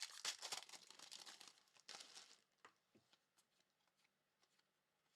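Crinkling and rustling of a foil trading-card pack wrapper and cards being handled as a pack is opened, dying away after about two and a half seconds to a few light clicks.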